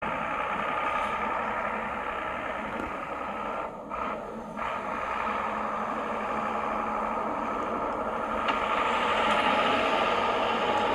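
A vehicle's motor running steadily while driving off-road, with a short dip about four seconds in and getting louder near the end.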